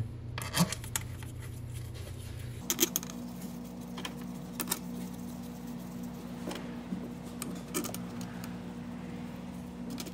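Metal valve-cover bolts clinking: scattered light clicks and jingles as the bolts are handled and set into the holes of the valve cover. A steady low hum runs underneath.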